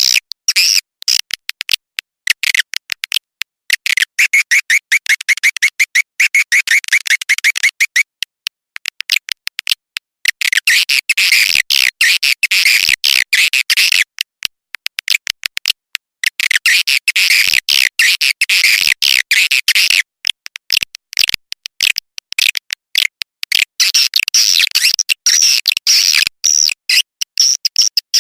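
Swiftlet call-lure recording: rapid trains of sharp, high chirping clicks and twitters, swelling into dense stretches of a few seconds each, about four times, with thinner clicking between.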